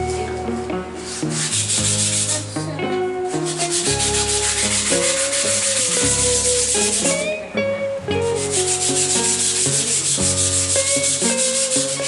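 Rapid, even rubbing strokes, like sandpaper worked back and forth over a hard surface, with a short pause partway through. Instrumental background music plays under it.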